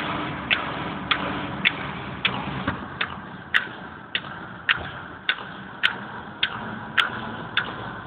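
A car's flasher relay clicking steadily, just under twice a second, heard inside the cabin over low road and engine noise.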